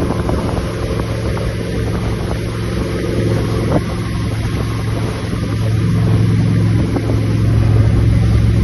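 Motorboat engine running steadily, with wind noise on the microphone.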